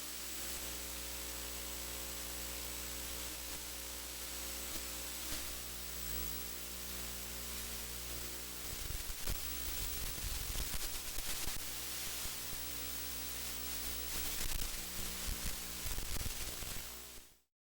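Steady static hiss over a low electrical hum, with irregular low rumbling bumps from about halfway through; it cuts off suddenly near the end.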